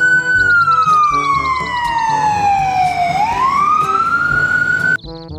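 Ambulance siren wailing: a slow fall in pitch over about three seconds, then rising again, before it cuts off suddenly near the end.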